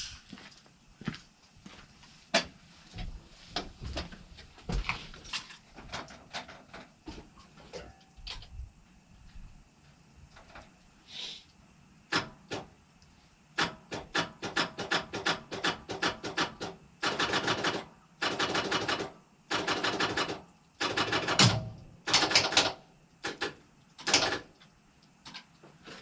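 A truck's starter clicking and chattering in short bursts as the key is tried, without cranking the engine over: the owner puts it down to loose wires on the starter. Scattered single clicks come first, then repeated rapid chattering bursts in the second half.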